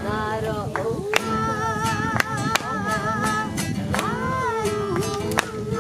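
Music: a voice sings long, wavering held notes over an accompaniment marked by sharp, percussive beats about twice a second.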